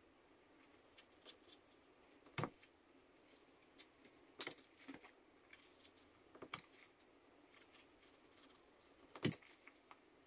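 Carving knife slicing small chips from a limewood Christmas-tree carving: quiet, scattered snicks and clicks of the blade cutting wood, four sharper ones at intervals of about two seconds.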